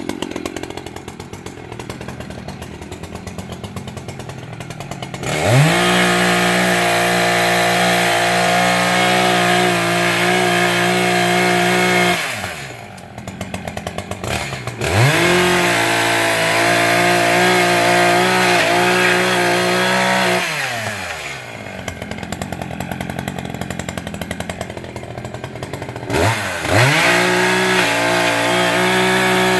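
Echo CS-590 Timberwolf's two-stroke chainsaw engine idling, then opened up to full throttle three times, dropping back to idle in between, as it cuts into Areca palm stems.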